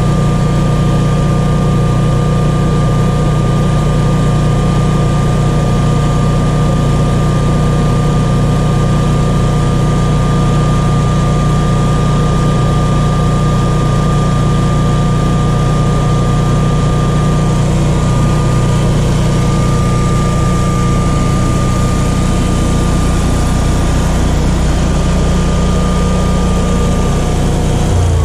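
Generac 22kW standby generator's air-cooled G-Force V-twin engine running steadily at its governed speed, a deep even hum with a steady high whine over it.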